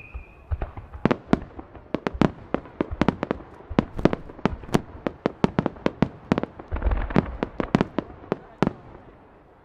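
Starmine fireworks barrage: many sharp bangs from shells firing and bursting in quick succession, several a second, with a patch of crackle about seven seconds in. The bangs thin out and stop near the end.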